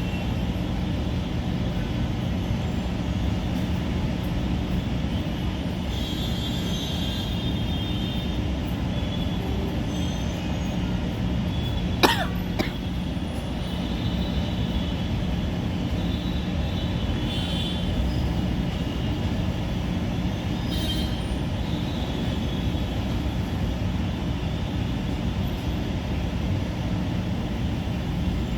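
Steady background traffic noise with a low hum throughout. About twelve seconds in comes one short, sharp burst, with a smaller one just after, from a woman trying to make herself sneeze.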